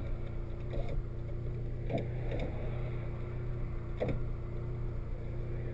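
Steady drone of a car's engine and road noise heard inside the cabin while driving, with a couple of faint clicks.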